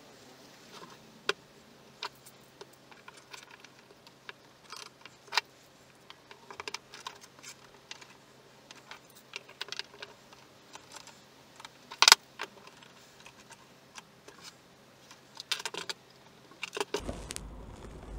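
Scattered small clicks, knocks and rattles of bar clamps being set and tightened across a glued-up block of oak pieces, with one sharper knock about twelve seconds in. A steady low hum comes in near the end.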